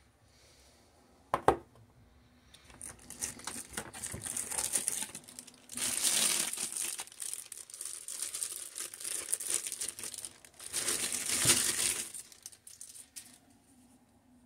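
A single sharp click about a second in, then the crinkling of a thin clear plastic bag being handled and pulled off a mini PC's power adapter. The crinkling comes in several louder spells and stops shortly before the end.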